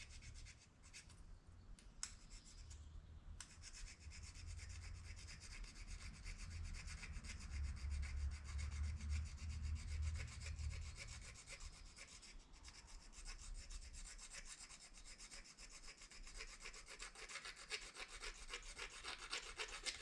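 Plastic fork prongs scraping rapidly back and forth along the edge of a plastic spoon, a steady rasping of plastic on plastic as the spoon is ground sharp.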